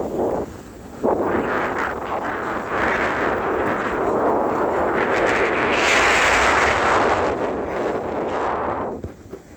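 Loud rushing wind buffeting the microphone, with a brief lull about half a second in, swelling strongest past the middle and dropping away just before the end.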